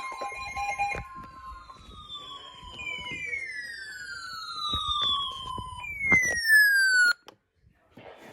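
Electronic alert tones. An alternating two-pitch alarm tone breaks off about a second in, then a run of overlapping siren-like tones slides down in pitch, the last one loudest, and everything cuts off abruptly about seven seconds in.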